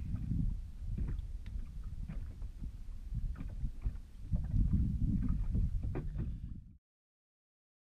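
Low rumbling wind and water noise on a small boat at sea, with scattered light knocks and clicks; it cuts to silence near the end.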